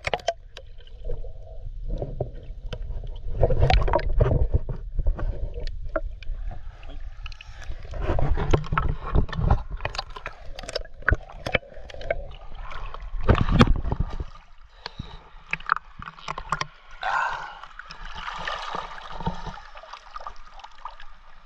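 Water sloshing and gurgling against a camera moving in and out of the water beside a swimmer and a bodyboard, with scattered sharp clicks and knocks. A low rumble runs through the first two-thirds and gives way to lighter, hissing splashes near the end.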